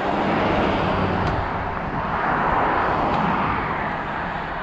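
A pickup truck driving past close by on the road: a low engine hum with tyre noise that passes about a second in, then a broad rush that swells and eases off.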